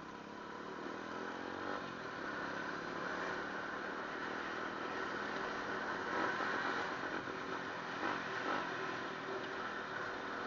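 Motorbike riding along a gravel track: the engine runs steadily under a wash of tyre and road noise, and it rises in pitch about one to two seconds in as it accelerates.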